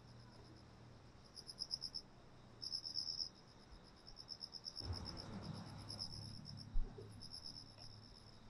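Crickets chirping in bursts of rapid high pulses over a faint low hum. A soft noise swells about five seconds in, and a short dull thump comes near seven seconds.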